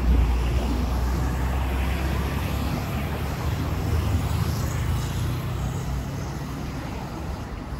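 City bus passing close by, its low engine sound loudest at the start and fading over the next few seconds, with steady road traffic noise from passing cars.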